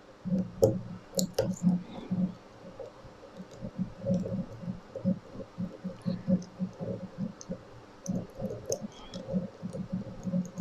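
Small, irregular metallic clicks and taps of a lock pick working the pins of a five-pin tubular cam lock held under tension, as the pins are probed and set one by one.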